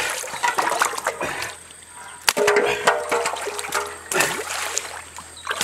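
Water splashing and trickling, with sharp knocks about two and four seconds in.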